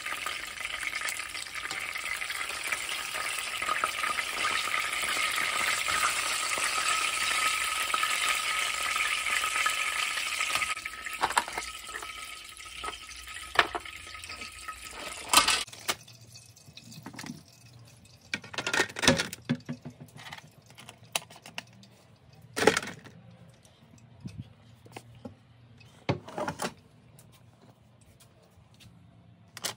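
Chicken wings sizzling in hot oil in a frying pan, a steady frying hiss that fades out after about eleven to fifteen seconds. After that come scattered knocks and clinks of kitchenware being handled.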